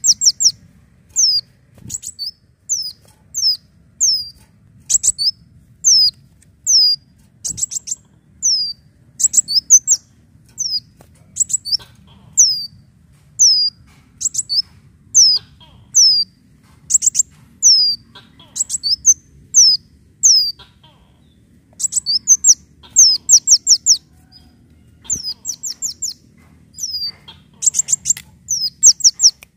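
Caged sunbird (kolibri daun) singing: a fast, continuous run of high, thin, downslurred chirps broken up by quick clusters of rapid repeated notes, with a short pause about four-fifths of the way through.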